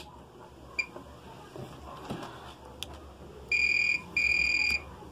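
Digital multimeter in continuity mode beeping twice in quick succession, each a steady high tone of about half a second, about three and a half seconds in: the tester's signal that the probes are across a connected path.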